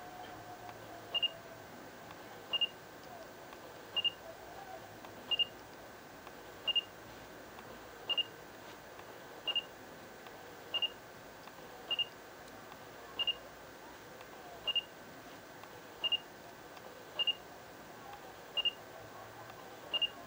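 Samsung NX10 camera's autofocus-confirmation beep: a short high beep about every second and a half, some fifteen times, each one signalling that focus has locked.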